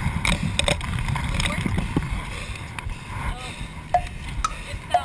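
Wind rumbling on the camera microphone, with clicks and rustles from gear being handled close by and snatches of faint voices.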